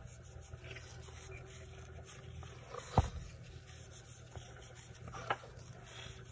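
Small handling sounds of work on a disassembled graphics card: one sharp knock of a hard object about three seconds in, a smaller knock about two seconds later, over a faint low hum.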